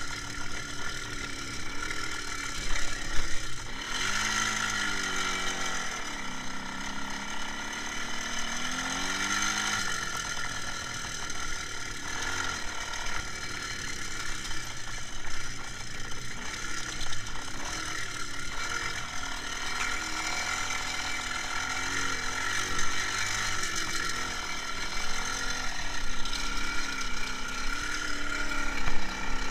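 IZh Jupiter-5 motorcycle's two-stroke twin engine running on the move, its pitch rising and falling repeatedly with the throttle, with a rattly mechanical sound throughout.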